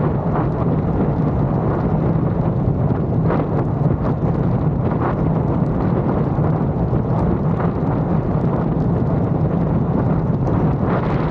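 Triumph Speed Twin 1200's parallel-twin engine running steadily at cruising speed, under heavy wind rush on the camera microphone.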